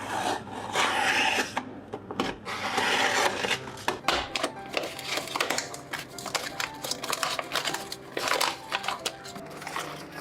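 Paper being handled: rustling and crinkling with quick taps and clicks, the loudest rustles about a second in, about three seconds in, and near the end.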